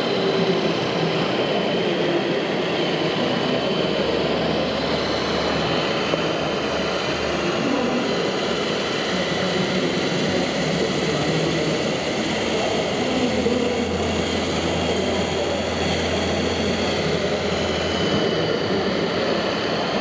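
Small electric motors and gearboxes of 1:14 scale RC construction machines whining steadily, with a high whine that shifts slightly in pitch now and then and a low engine-like hum that swells twice, over a continuous din.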